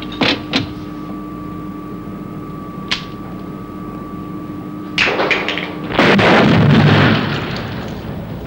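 Film sound effects: a few sharp knocks over a steady humming tone, then about five seconds in a burst of noise that turns into a loud blast with a deep rumble, lasting over a second before it fades.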